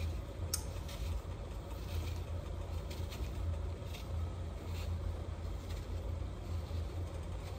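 Faint scraping strokes of a Y-shaped vegetable peeler paring the skin off an apple, every second or so, over a steady low hum.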